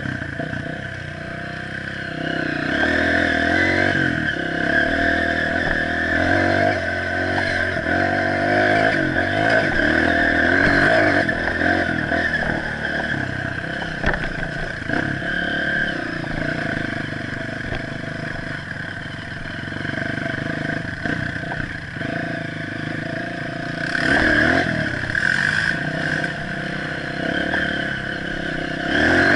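Honda CRF230F dirt bike's air-cooled single-cylinder four-stroke engine running under way, heard from on board, its revs rising and easing with the throttle: louder a couple of seconds in and again briefly near the end.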